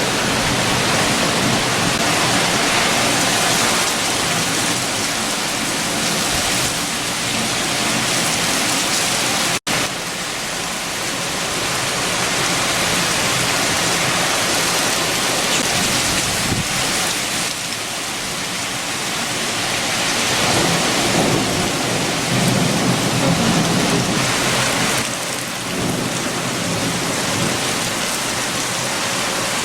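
Heavy rain with strong wind: a dense, steady hiss, with a deeper low swell about two-thirds of the way through. The sound cuts out for an instant about ten seconds in.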